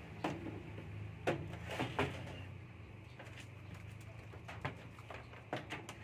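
Low electrical hum from the opened microwave oven, which fades out about halfway through, with a few light clicks and knocks of parts and test leads being handled.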